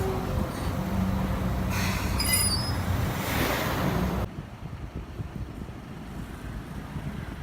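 Toyohashi Railway Mo780-class tram running on street track, with a steady low hum and a brief high wheel squeal about two seconds in. About four seconds in the sound drops suddenly to a quieter street background.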